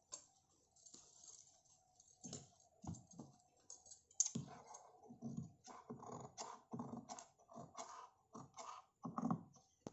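Scissors snipping a series of small clips into the curved neckline seam allowance of a sewn blouse, so the neck edge will turn and lie flat. The snips are faint, short and irregular, roughly a dozen of them spread over the last seven seconds.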